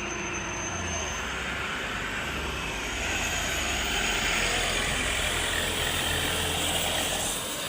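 Heavy diesel engine running steadily, a low hum under a broad noise, getting a little louder about three seconds in.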